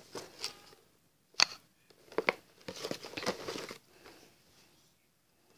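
Knife cutting and scraping at a cardboard toy box, with crinkling and tearing of the packaging in several short bursts; the sharpest snap comes about one and a half seconds in.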